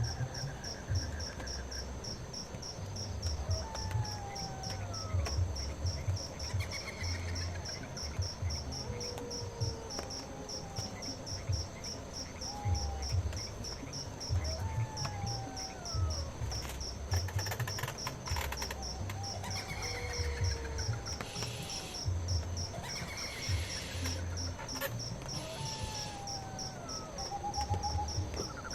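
Night insects in a bamboo forest: a cricket's steady, rapidly pulsing high trill, with other insects chirping in shorter bursts. Short gliding calls come now and then over a low, uneven rumble.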